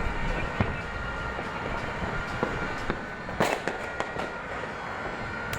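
Fireworks and firecrackers going off at a distance: a steady crackle and rumble with scattered sharp bangs, the loudest cluster of bangs about three and a half seconds in.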